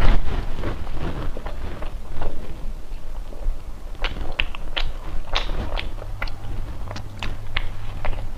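Close-miked chewing of a soft ice cream bread bun, with a run of sharp mouth clicks and lip smacks from about four seconds in.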